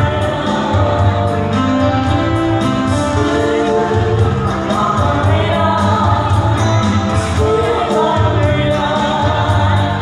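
Live band playing through a PA: female vocals singing long held notes over electric guitar and a heavy, pulsing bass line.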